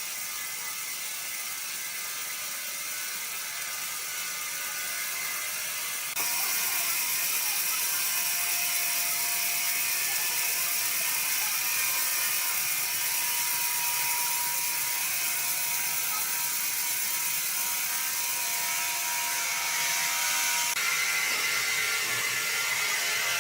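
Sawmill machinery running with a steady high hiss and faint whining tones. The sound steps up abruptly about six seconds in and shifts again near the end.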